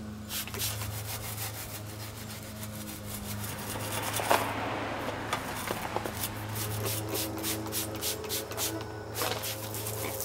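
A scrub brush scrubbing a bicycle frame with soapy water and degreaser in quick back-and-forth strokes. A trigger spray bottle squirts a few times near the start.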